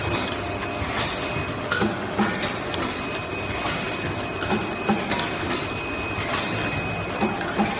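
Automatic soft tube filling and sealing machine running: a steady mechanical clatter with a faint steady high whine, broken by sharp clacks and knocks about once or twice a second as its stations cycle.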